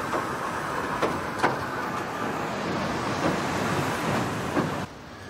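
Southend Pier railway train running along the pier track: a steady rumble with occasional clacks of the wheels over rail joints, cutting off abruptly near the end.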